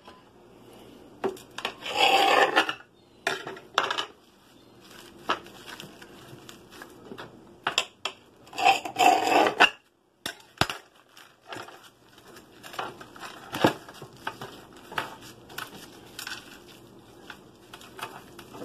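Plastic cling film being handled and rolled around a raw sausage log, crinkling, with scattered clicks and taps on a plastic cutting board. Two longer, louder rustling bursts come about two seconds in and about nine seconds in.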